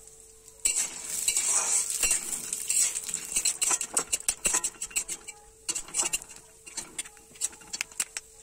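Raw peanuts frying in a little hot oil in an aluminium kadai, stirred with a metal spatula. Starting about a second in, the oil sizzles while the nuts and the spatula click and scrape against the pan. The stirring thins out to scattered clicks in the second half.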